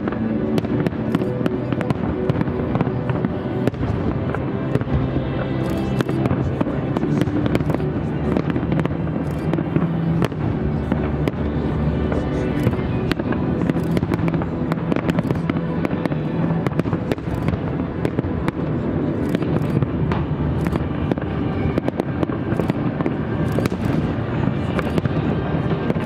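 Aerial firework shells bursting in a continuous barrage, with sharp bangs coming irregularly several times a second, over music playing throughout.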